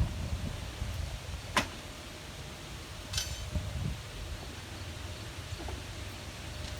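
Steady low rumble with two sharp clicks about a second and a half apart, the second with a brief metallic ring.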